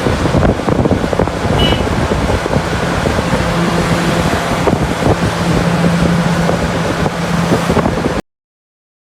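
Heavy diesel mining machinery running, a dense rumbling, crackling noise with a steady engine drone from about three and a half to seven seconds in. It cuts off suddenly near the end.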